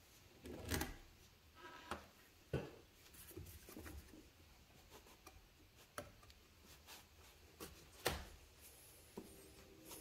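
Faint hand work on a radiator hose and its hose clamp: scattered light clicks and knocks with soft rubbing, the sharpest clicks about two and a half and eight seconds in.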